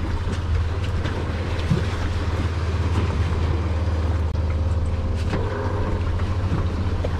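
A boat's outboard motor idling with a steady low rumble, over a hiss of wind and water.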